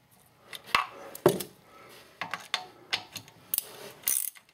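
Ratchet wrench clicking in short strokes, with metal clinks as it is fitted onto the differential cover bolts: the bolts are being snugged in a star pattern, just until the RTV sealant squeezes out at the cover edge. The clicks and knocks come irregularly, about eight in all.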